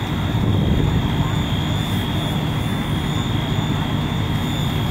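Steady low engine drone with a thin, steady high whine held on top.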